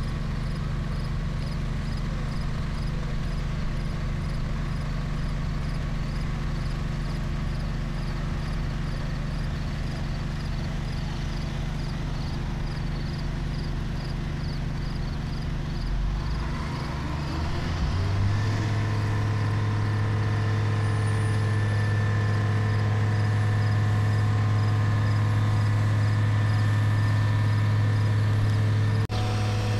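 Mobile crane's diesel engine running steadily, then revving up with a rising whine about 16 seconds in and holding at a louder, higher steady pitch; the sound breaks off for an instant near the end.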